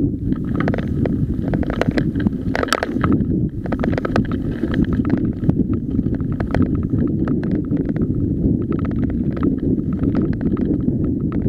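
Mountain bike rolling fast down a loose gravel track: a steady low rumble of tyres on stones and wind on the camera microphone, with frequent sharp clicks and rattles as the bike jolts over the rocks.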